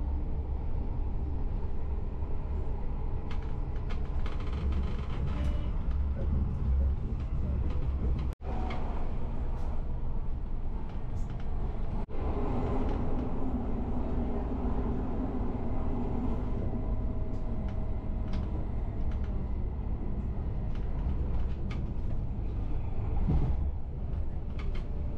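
Passenger train running on the rails, heard from inside the carriage: a steady, deep rumble of the wheels and car body. The sound cuts out for an instant twice, about eight and twelve seconds in.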